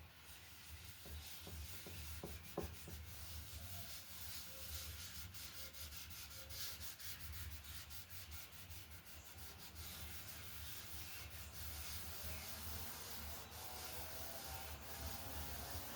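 Oil finish being rubbed by hand into a camphor wood pot, a soft scraping of cloth on wood in many short strokes, over a steady low hum. A single sharp tap about two and a half seconds in.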